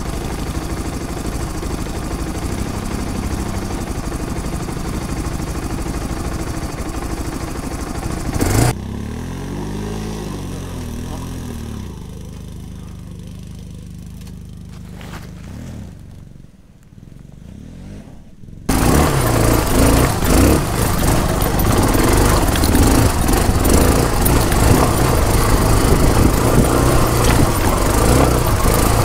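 Off-road motorcycle engine running at low speed on a rocky trail. About nine seconds in the sound cuts to a quieter stretch where the engine pitch rises and falls and then fades. About nineteen seconds in it cuts to a much louder, rough engine-and-riding noise.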